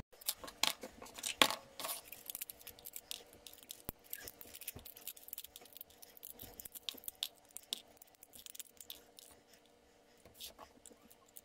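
Scattered light clicks and taps from small plastic toy parts being handled, busiest in the first two seconds and thinning out later, over a faint steady hum.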